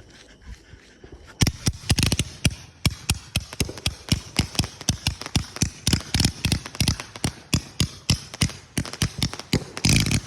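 Winda Fireworks' 350-gram Ballet Mini consumer fireworks cake, a small zipper-style cake, firing a rapid string of sharp cracks, about four or five a second. The shots start about a second and a half in and run for about eight seconds. A louder steady rushing noise comes in at the very end.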